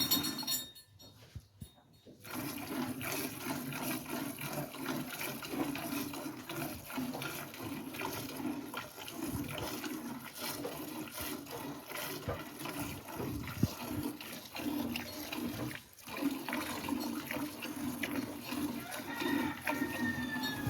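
Liquid running and splashing continuously, with irregular spatters, breaking off briefly about a second in and again near the end.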